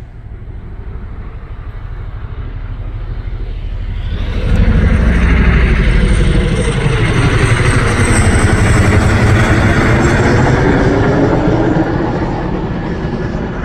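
A low-flying firefighting aircraft passing overhead: its engine noise builds, jumps loud about four seconds in and stays loud, then begins to ease near the end.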